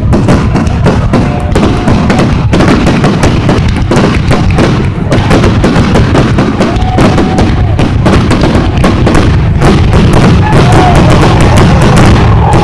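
Fireworks going off in a dense, rapid barrage: many bursts and crackles close together over low booms, with no let-up.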